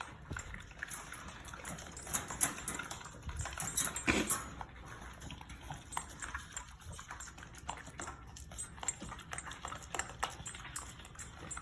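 French bulldogs eating raw meat food, a steady run of small irregular wet clicks and smacks with a few louder ones.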